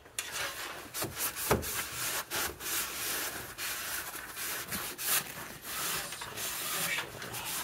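Shop rag scrubbed back and forth over the grimy sheet metal of an engine bay, cleaning off WD-40 and dirt: a steady run of rubbing strokes with a few sharp knocks.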